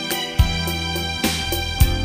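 Instrumental introduction to a Khmer pop song: a steady drum beat over held bass and keyboard-like notes, with no singing.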